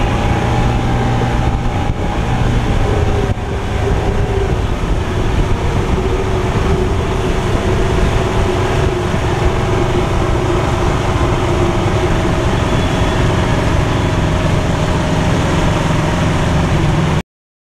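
Motorboat engine running steadily under way, with water rushing along the hull and wind noise; it cuts off abruptly near the end.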